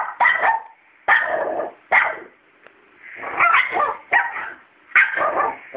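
Small dog barking at a cat in a string of about six loud, sharp barks, roughly a second apart.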